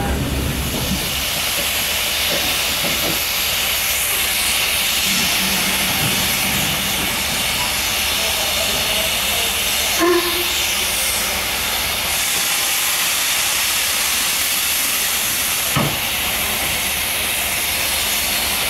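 Steady loud hiss of steam from a Stanier Class 8F steam locomotive, with a short knock about ten seconds in and another about sixteen seconds in.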